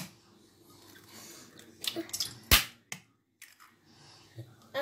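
A few light knocks and one sharp clack about two and a half seconds in: an egg tapped against a stainless steel mixing bowl.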